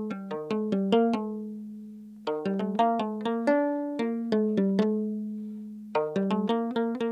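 Ethiopian krar (lyre) plucked in quick runs of notes, each ringing and fading, over a held low note. The playing stops twice and the notes ring out, about a second in and again near five seconds, then starts again.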